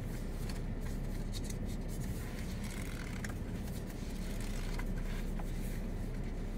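Steady low outdoor rumble with faint, scattered ticks and scrapes.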